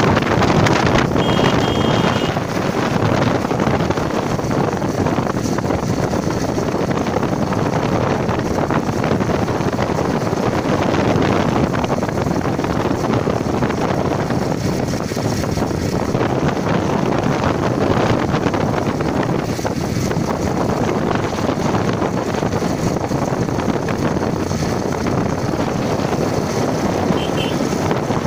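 Steady wind rush on the microphone mixed with road and engine noise from a vehicle moving at speed.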